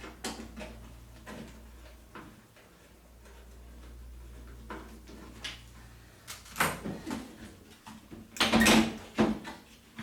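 Scattered clicks, knocks and scrapes of hands and a screwdriver working on a front-loading washing machine's rubber door seal and its wire retaining spring, with a louder cluster of knocks and rattles near the end.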